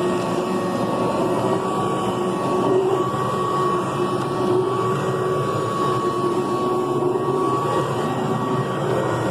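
Kirby Classic III upright vacuum cleaner running steadily while vacuuming, its motor noise carrying a constant high whine.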